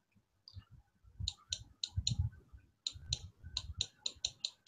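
Computer mouse clicking while a slide document is scrolled: short sharp clicks in quick, irregular runs, about five starting a second in, then after a brief gap a faster run of around nine.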